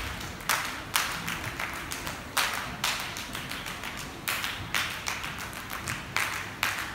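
Flamenco dancers' live hand-clapping (palmas) and heel taps, unaccompanied: sharp strikes in short groups of three or four, about two a second.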